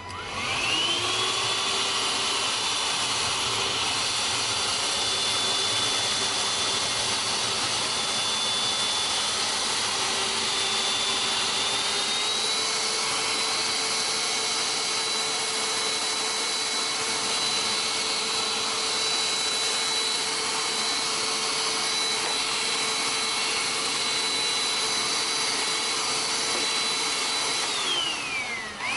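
GWELL G5 cordless handheld vacuum cleaner motor spinning up with a rising whine and running steadily. About twelve seconds in its pitch steps up higher. Near the end it winds down with a falling whine and then starts up again.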